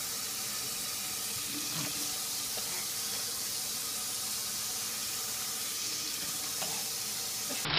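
Kitchen faucet running steadily, its stream splashing into a stainless-steel sink and onto a baby sitting in it.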